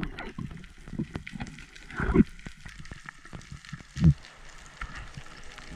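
Underwater sound on a diver's camera at a rocky reef: steady crackling and clicking, with two dull low thumps about two and four seconds in.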